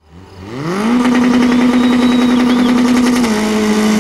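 Autocross race car engine revving up quickly and then held at high revs with a steady pitch, dropping slightly about three seconds in.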